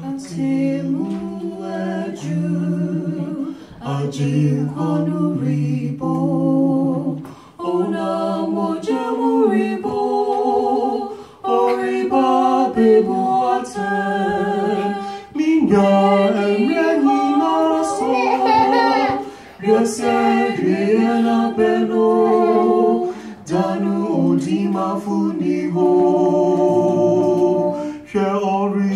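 A man and a woman singing a duet into microphones without instruments, the two voices in harmony, phrase after phrase with short breaths between.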